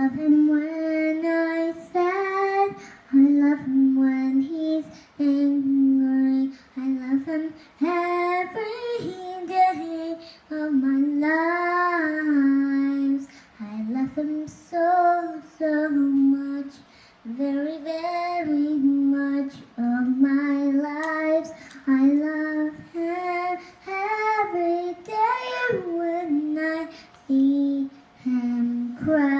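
A young girl singing a song on her own, with no accompaniment: held notes of a second or two that slide up and down in pitch, broken by short breaths.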